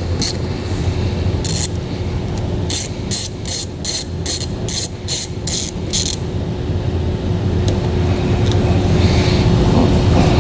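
Hand ratchet with a 10 mm socket clicking as it loosens the positive battery cable nut: a run of about a dozen clicks at roughly three a second, over a steady low hum.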